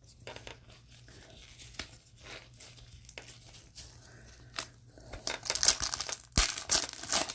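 A card pack's wrapper being torn open and crinkled, with light rustling and clicks first and a louder run of crackling tearing in the last couple of seconds.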